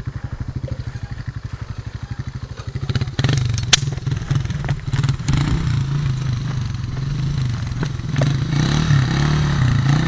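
Off-road vehicle engine running at low revs with an even chug, then revved hard about three seconds in and labouring, its pitch wavering up and down. A single sharp knock comes just after the revving starts, and rougher noise builds near the end.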